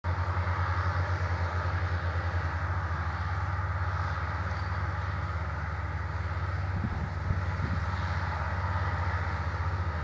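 Diesel engines of several Case IH CVX tractors running steadily under ploughing load, a continuous low drone with a hiss above it. A few low bumps come in from about two-thirds of the way through.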